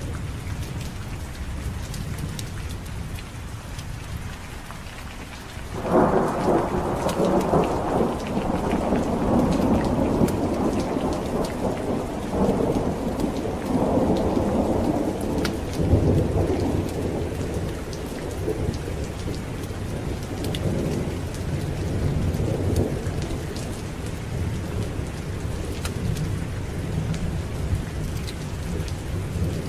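Steady heavy rain with a clap of thunder about six seconds in that rolls and rumbles, dying away slowly into a low grumble over the next fifteen seconds or so.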